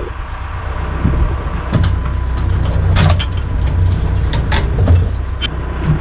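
Heavy diesel machinery engine running with a low steady drone, with several sharp knocks and clanks about halfway through, as a tractor is loaded onto a wooden flatbed trailer.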